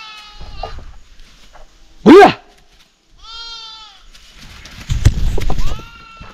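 Goats and sheep in a flock bleating: a call fading out at the start, a short loud call about two seconds in, another a second later, and a steadier call near the end. Knocks and rustling come about five seconds in.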